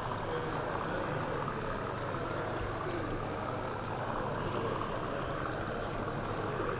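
Steady hubbub of a crowded exhibition hall: many voices murmuring together, with no single voice standing out.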